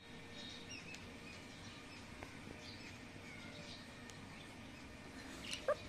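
Faint outdoor ambience with scattered bird chirps. Near the end comes a sharp click, then a brief high squeak.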